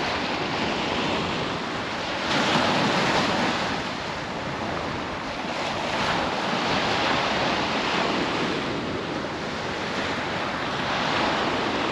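Sea surf washing and breaking on the beach, with wind rushing across the microphone; the surf swells loudest about two and a half seconds in, then eases and rises again in softer surges.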